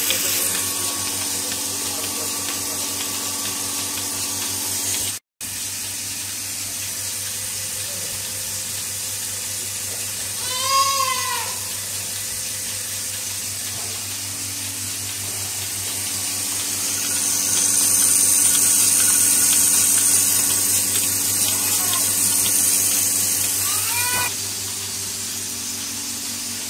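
Electric milking machine's dry vane vacuum pump running steadily, with a hiss of air that grows louder for several seconds in the second half. An animal bawls once about eleven seconds in, and gives a shorter call near the end.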